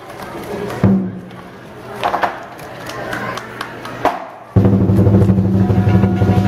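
Lion dance percussion: a few separate drum and cymbal strikes that ring out, then from about four and a half seconds in a loud, fast drum roll.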